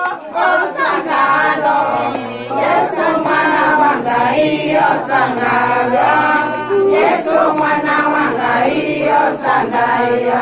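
A group of women singing together as a chorus.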